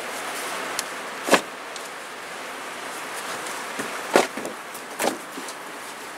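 Bricklaying work: a few sharp knocks and clinks of bricks being set and handled, the loudest about a second in and two more near the end, over a steady hiss.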